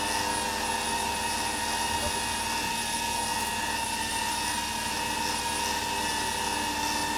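Winch on a Jeep Wrangler JKU reeling in its rope under load: a steady mechanical whine made of several even tones, holding level without a break.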